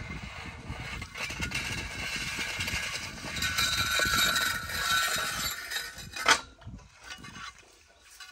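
Metal scraping and clinking from a steel hand-drilling pipe and its bucket auger (boki) being worked in a shallow borehole, with one sharp metallic clink about six seconds in. The auger is jammed in the pipe by a small pebble.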